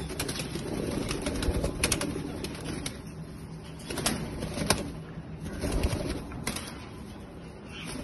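Indian ringneck parakeets flapping their wings in a wire cage, in several flurries of wingbeats with a few sharp clicks among them.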